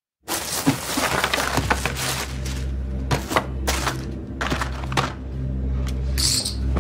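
Crackling and rustling of plastic and paper packaging being handled and opened, followed by a series of sharp clicks and taps, over a low steady drone of film score.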